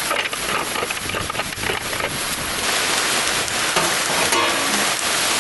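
Steady rain hiss, with a scatter of knocks and clinks as the chicken thighs and the steel rebar rods go into the Pit Barrel Cooker. A short metallic ring comes near the end.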